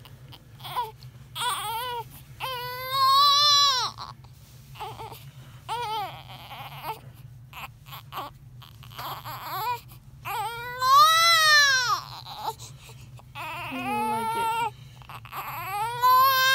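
Newborn baby crying in repeated high wails, three long ones among shorter cries and whimpers.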